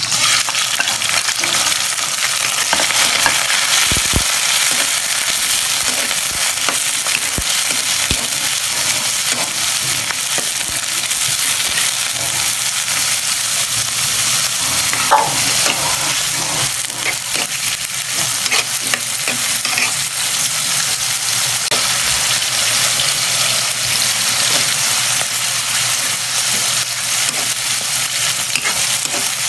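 Tuway clams and garlic sizzling in a wok, with scattered clicks and scrapes of a spatula stirring them.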